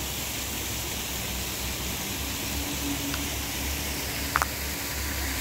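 Steady outdoor rushing hiss with a low rumble under it; a faint hum joins about halfway through, and there is one short click about four seconds in.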